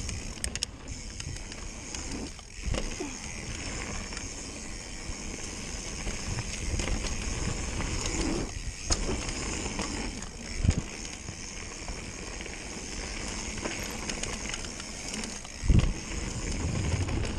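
Mountain bike descending a dirt trail, heard from a handlebar-mounted camera: a steady rush of tyre and wind noise with low rumble, and two heavy thumps, one past the middle and one near the end, as the bike hits bumps in the trail.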